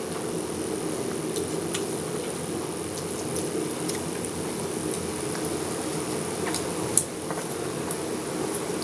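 Eating sounds of rice and curry being mixed by hand and chewed: scattered small clicks and wet squishes, with one sharp click about seven seconds in, over a steady background hum.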